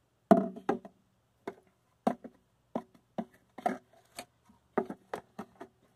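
Small plastic feeder-insect cups and their lids being picked up, knocked together and set down on a glass tank top: a run of irregular clicks and taps, the loudest about a third of a second in.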